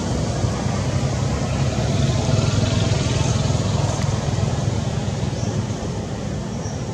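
Steady low rumble of a vehicle engine, swelling a couple of seconds in and easing off after about five seconds.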